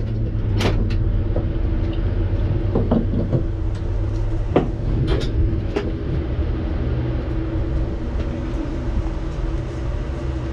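A steady low mechanical drone from a vehicle engine running nearby, with scattered knocks and clunks as a person climbs out of the race car's seat.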